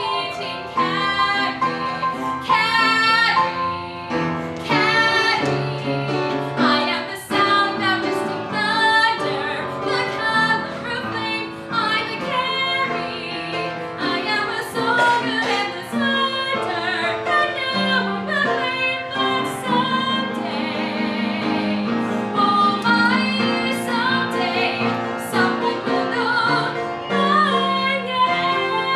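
A woman singing a solo musical-theatre song with live piano accompaniment.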